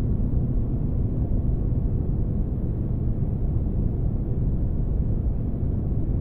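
Spaceship engine-room ambience for sleep: a steady, deep rumbling noise with almost nothing high-pitched in it, unchanging throughout.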